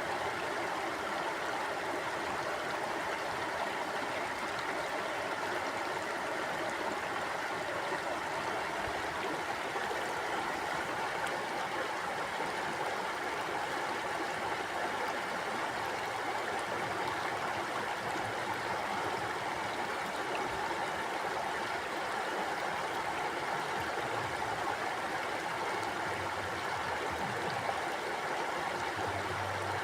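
Mountain stream flowing, a steady rush of running water.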